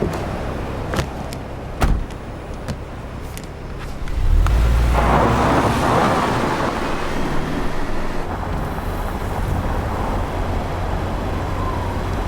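A car, with a few sharp knocks in the first two seconds, then the car moving off about four seconds in with a surge of engine and road noise, settling into a steady low engine hum.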